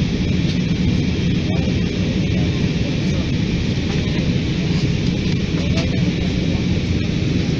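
Steady, low roar of an airliner's jet engines and rushing air, heard from inside the passenger cabin.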